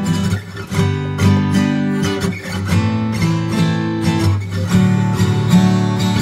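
Acoustic guitar music with chords strummed in a steady rhythm.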